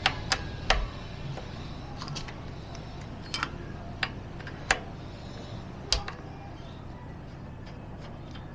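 Irregular sharp clicks and taps of tools and metal parts as an old Shimano Dura-Ace rear derailleur is worked off a bicycle, over a low steady hum.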